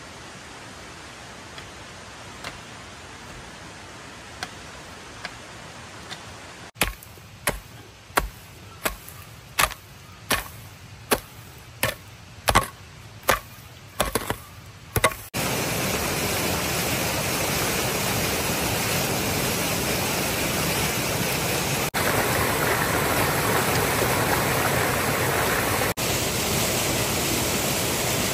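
A hoe chopping into weedy soil, about a dozen strikes at roughly three every two seconds, after a stretch of faint, scattered knocks. About halfway through, a clear spring-fed stream takes over with a steady, louder rush of flowing water.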